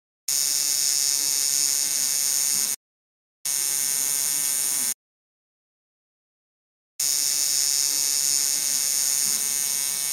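Tattoo machine buzzing in three bursts that start and stop abruptly, the third the longest: a steady, high-pitched electric buzz.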